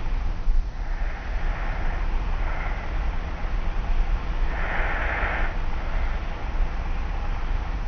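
Light snoring of a person asleep on their back: a few slow, soft breaths, the loudest about five seconds in. Recorded on a tape recorder, with a steady low hum and tape hiss underneath.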